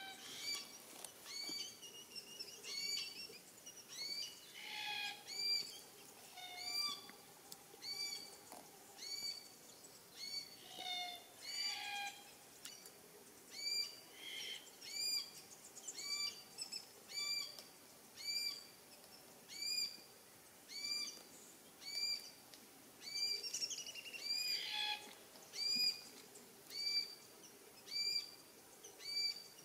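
Glossy black-cockatoos calling: a short rising-and-falling call repeats steadily about every 1.3 seconds, with other scattered bird calls in between.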